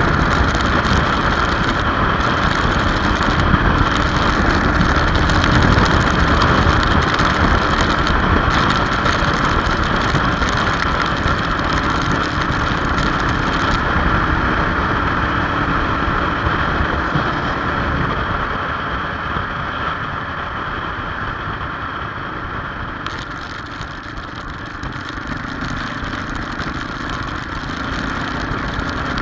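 Motorcycle running steadily at road speed on a wet road, its engine mixed with wind and tyre noise. The sound dips a little for a few seconds past the middle.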